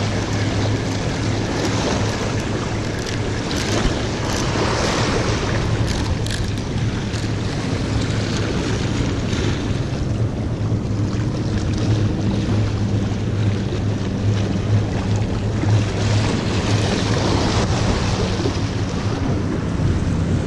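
Small waves washing against jetty rocks, with wind buffeting the microphone and a steady low hum underneath.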